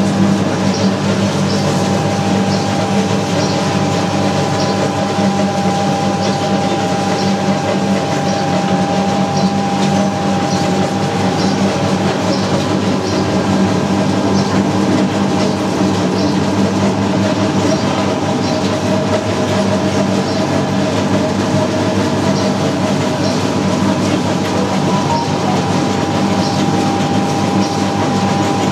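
Naswar grinding machine running, its steel drum turning under a heavy metal pestle that grinds the tobacco mix: a steady mechanical drone with a regular light clicking about once a second.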